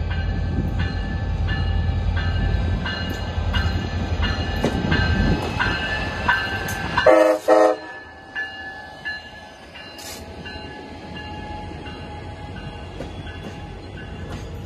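A Siemens Charger diesel locomotive heading a passenger train approaches and passes: its deep engine rumble builds, with regular ringing strikes about every three-quarters of a second. About seven seconds in come two short horn blasts, the loudest sound. After that the rumble drops away and the bilevel passenger cars roll by with a lower, steady rolling of wheels on rail.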